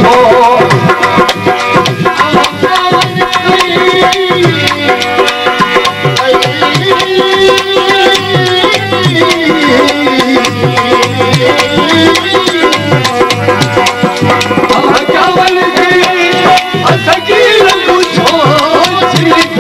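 Live Sindhi folk music: a dholak drum beating a steady rhythm under a sustained, wavering melody.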